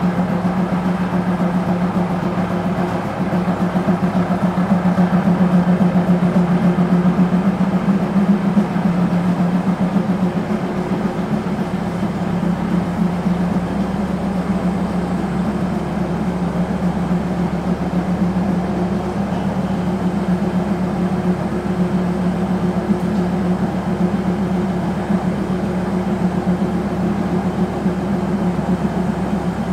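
Diesel engine of a standing Thai State Railway passenger train idling with a steady low hum.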